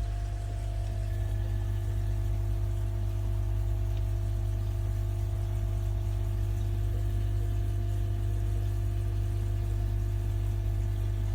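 Steady low hum of a pond pump running, with two steady tones above the hum and a light wash of water noise; nothing changes through the stretch.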